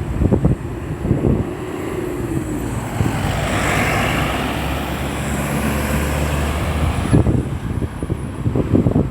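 Road traffic passing at a busy roundabout: a heavy vehicle's engine runs steadily past for a few seconds in the middle and cuts off sharply, with wind buffeting the microphone at the start and end.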